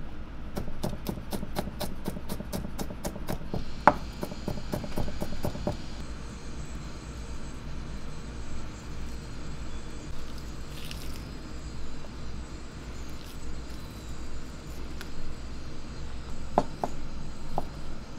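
Chef's knife chopping garlic on a plastic cutting board in a fast, even run of knocks, about five a second, then a few looser chops. After a quieter stretch, a handful of separate knife chops into cooked chicken near the end.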